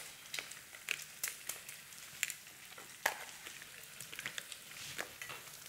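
Stew sizzling in a pot on the stove while a spoon stirs it, with scattered clicks of the spoon against the pot.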